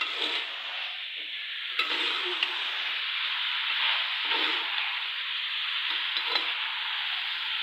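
Minced meat and bitter gourd frying in a pan with a steady sizzle, a spatula scraping and stirring through it about every two seconds.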